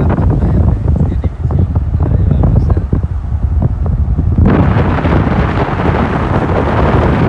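Wind buffeting the microphone: a heavy low rumble with crackling knocks, then about four and a half seconds in a louder rushing hiss.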